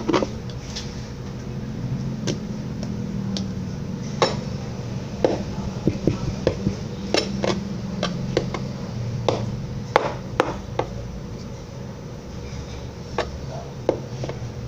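Slime being mixed in a container: irregular sharp clicks and knocks, like a utensil striking the sides of the container, over a low steady hum.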